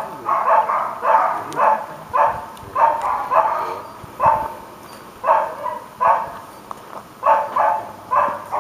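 A dog barking over and over, about two barks a second, sometimes in quick pairs, with a few short pauses.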